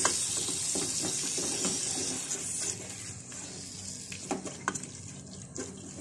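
A wet onion and spice-paste masala sizzling on a low flame in a metal pot while a wooden spatula stirs it, with scattered clicks and scrapes of the spatula against the pot. The sizzle weakens about halfway through.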